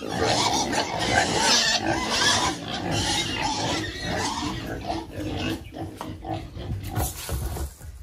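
Pigs grunting and squealing continuously in a pen, with a hissing spray of water mixed in, thinning out near the end.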